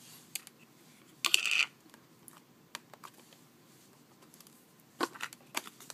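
Small containers of glitter being handled and set down: scattered light clicks and knocks, with a brief louder rattle about a second in and a few more clicks near the end.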